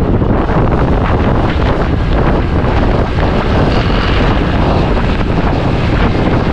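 Wind buffeting the microphone over the steady rumble of a moving vehicle on the road.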